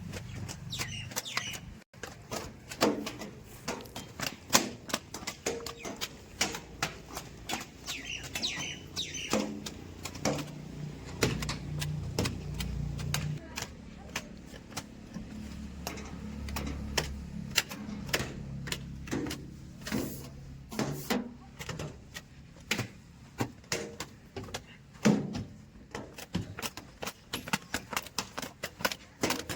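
Diesel engine of heavy machinery running, its pitch rising and falling a few times, under many sharp clicks and knocks. A few bird chirps come through higher up.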